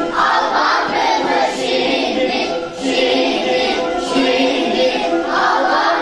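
Children's choir singing together, holding long notes.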